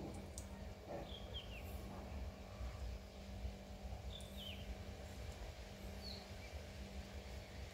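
A bird giving short, high, falling chirps, a pair about a second and a half in, another pair about four seconds in and a single one near six seconds, over a steady low hum.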